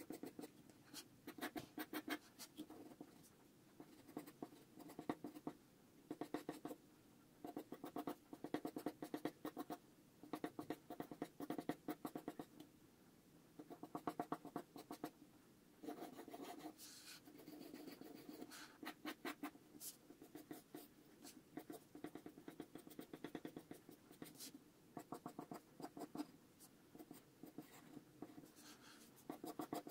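Pencil sketching on paper: quick scratchy strokes that come in bursts, with short pauses between them.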